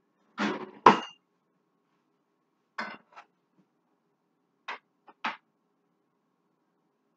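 Cookware clattering at a kitchen stove: short knocks and clinks of pots, pans and utensils in three small groups, the loudest sharp clank about a second in and two more pairs of clinks around three and five seconds in.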